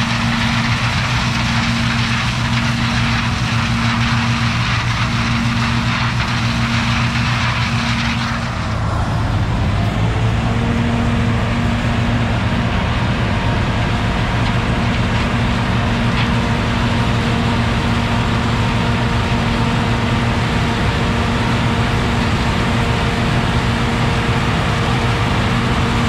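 John Deere 6620 combine running steadily while harvesting corn, its engine holding a constant low pitch. About a third of the way in, the high hiss of the machine drops away, and the engine carries on unchanged.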